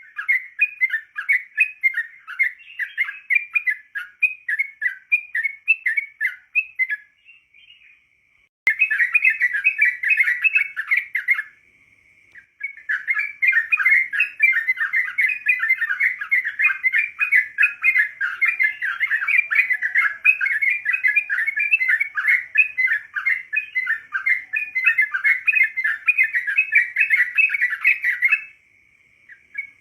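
Yellow-vented bulbul (trucukan) song: a fast, continuous run of short chirps, breaking off briefly twice.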